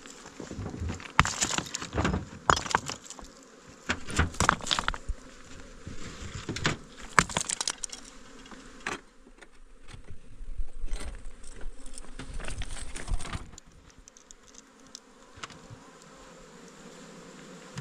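Honeybees buzzing around an open hive, with repeated knocks, scrapes and clatter of the hive being handled from about a second in until near the end.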